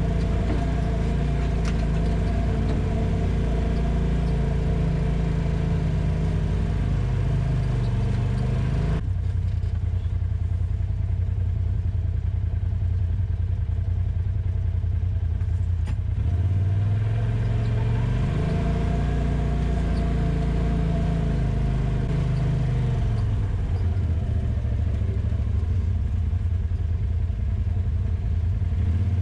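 Polaris RZR side-by-side engine running under way on a dirt trail, its note rising and falling a couple of times with the throttle, over the rattle of the machine.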